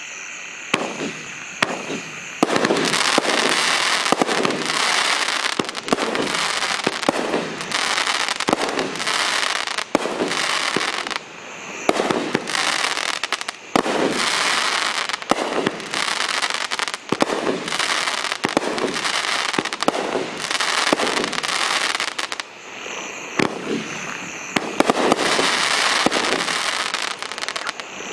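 A 20-shot consumer firework cake firing: after about two seconds of hissing, a rapid run of shots and bursts of strobing mines and peonies, over a continuous sizzling crackle from the stars. The firing eases briefly twice, about eleven and twenty-two seconds in.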